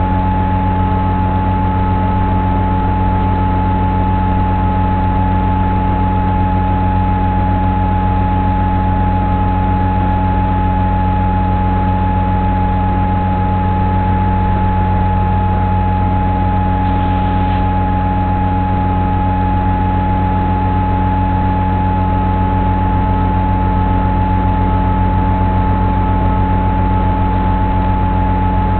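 A steady, loud hum held at one pitch, made of several fixed tones, the highest and strongest a clear whine, with no change in pitch or loudness throughout.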